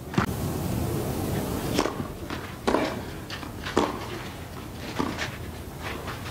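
Tennis rally on a clay court: sharp racket strikes and ball bounces, about one a second.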